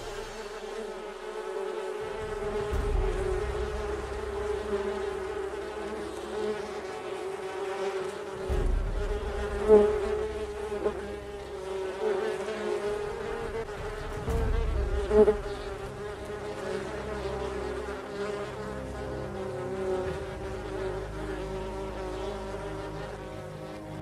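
Honeybee swarm buzzing in a steady drone, the bees stirred up by a raptor raiding their comb. Two brief loud bursts stand out, about ten and fifteen seconds in.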